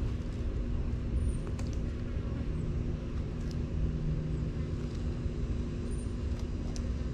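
A steady low mechanical hum and rumble, with a few faint crunches of a sulcata tortoise chewing pumpkin.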